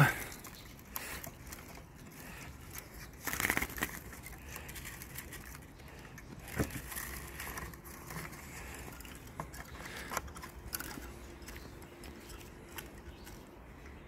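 Rustling, clicks and knocks of a hand and sleeve working inside a wooden-framed bird trap cage to take out a goldfinch, with a short scrape-like burst about three and a half seconds in and a sharp knock about halfway through.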